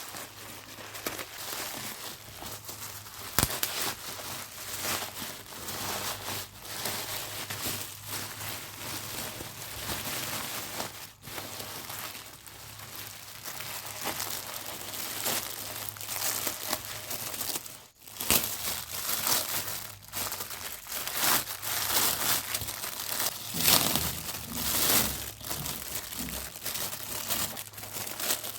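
Packaging crinkling and rustling as a parcel is unwrapped by hand, with irregular sharp crackles and a brief pause about eighteen seconds in.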